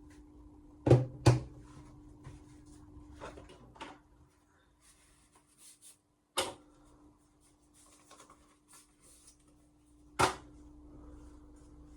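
Hard objects being set down and handled on a workbench: two sharp knocks about a second in, another near the middle and one near the end, with light clicks and rustling between, over a faint steady hum.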